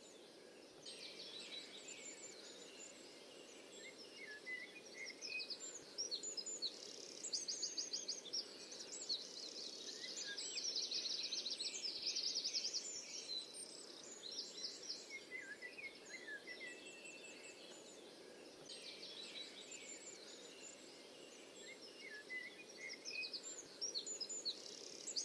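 Several songbirds singing in the forest: repeated fast trills and chirps, busiest in the middle, over a steady low background hiss.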